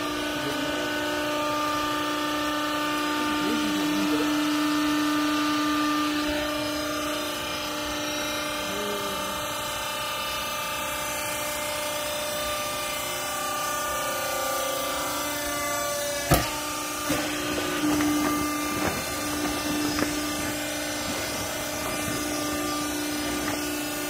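Hydraulic power pack of a vertical used-clothes baler, its electric motor and pump running with a steady hum. A sharp knock comes about sixteen seconds in, with a few lighter knocks after it.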